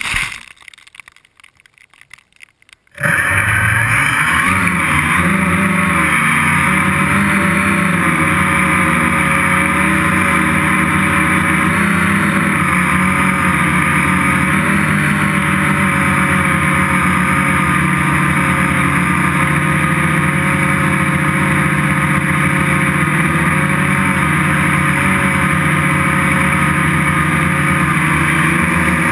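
Gaui 330X electric quadcopter's motors and propellers start abruptly about three seconds in and then run loud and steady as it takes off and hovers, heard close from a camera riding on the craft.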